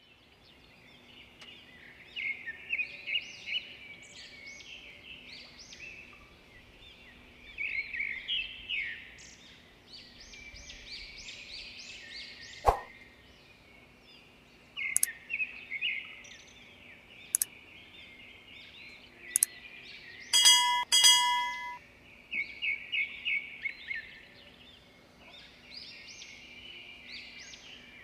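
Small birds chirping and twittering in quick repeated runs, with a few sharp clicks and a brief ringing tone a little past the middle.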